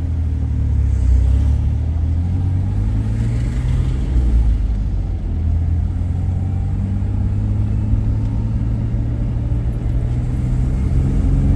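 Car cabin noise while driving: the engine and tyres make a steady low rumble.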